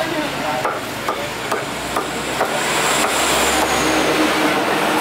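Heavy cleaver chopping through barracuda on a wooden chopping block: about five sharp chops, mostly in the first half, over a steady background noise that fills the rest.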